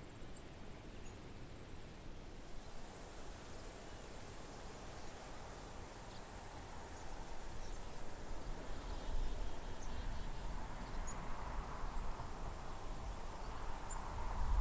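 Steady high insect trill, cricket-like, from the marsh vegetation, with scattered faint short chirps from the big swallow flock overhead. A low rumble builds over the second half.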